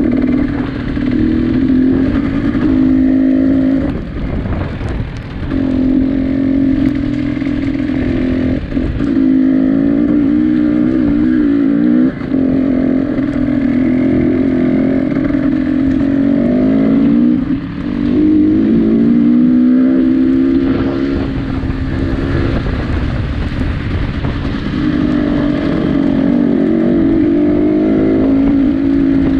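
An engine running hard at high revs, its note wavering up and down, with brief drops in revs about four, twelve and seventeen seconds in.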